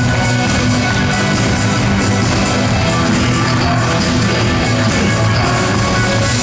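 Live rock band playing loudly with guitars over a steady, driving beat.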